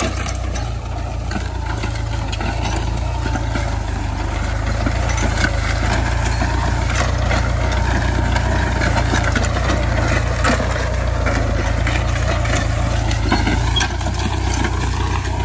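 Farm tractor's diesel engine running steadily as it pulls a disc plough through sugarcane stubble and trash, with scattered crackles and clicks throughout.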